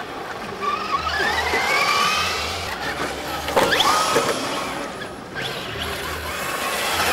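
Electric 1/10-scale RC cars racing on dirt, their motors whining and gliding up and down in pitch as they accelerate and pass. A sharp clatter comes about three and a half seconds in, as one car tumbles.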